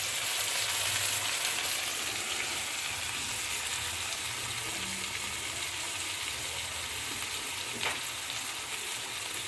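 A spiced onion, ginger, garlic and tomato masala sizzling steadily in hot oil as the chilli powder and turmeric fry, with one short click near the end.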